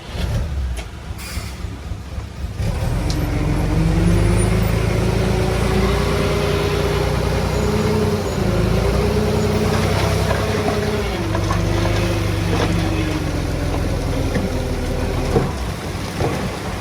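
Heavy earthmoving machine's diesel engine running hard, growing louder about two and a half seconds in, with a whine that wavers up and down in pitch over it.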